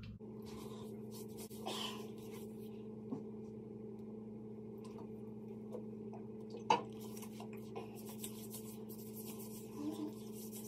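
Hands rubbing body oil into skin, with faint rubbing and handling sounds and a sharp click about two-thirds through, over a steady low electrical hum.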